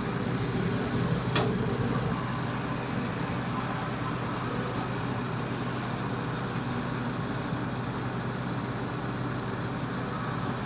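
Heavy machine's engine running steadily, a constant low drone, with a faint knock about a second and a half in.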